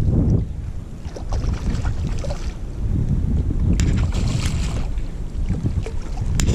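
Strong wind buffeting the microphone, with a hooked rainbow trout thrashing and splashing at the water's surface in two spells, one starting about a second in and another around four seconds in.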